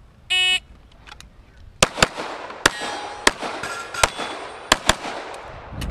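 A shot timer beeps once, briefly, and about a second later an STI Trojan .45 ACP pistol fires seven quick shots over about three seconds, some of them close together in pairs.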